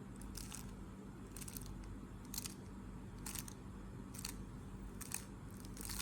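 Layers of a 3x3 Rubik's cube being turned one at a time, each turn a short plastic clack, about one a second, over a faint steady low hum.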